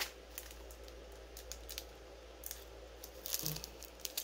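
Bubble wrap and clear plastic packaging crinkling and rustling as they are handled, in short scattered crinkles and small clicks.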